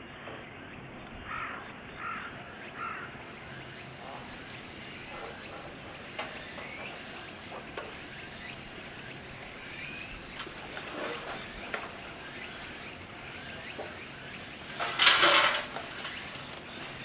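Outdoor ambience with a steady faint high-pitched drone and a few short chirps early in. About fifteen seconds in comes one loud, harsh call lasting about half a second.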